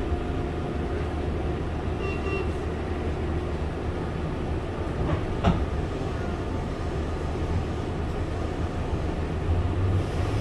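Running noise inside a Meitetsu 5000 series electric train: a steady low rumble of wheels on the rails, with one sharp knock about five and a half seconds in.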